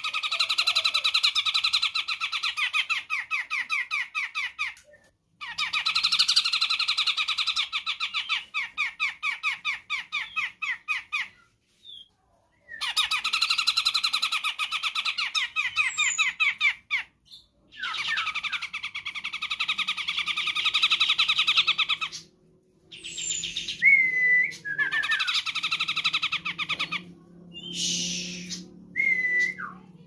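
Sumatran cucak jenggot (grey-cheeked bulbul) giving long bouts of fast, chattering repeated notes, each bout several seconds long, with brief pauses between them. In the second half a few short slurred whistles come in between the bouts.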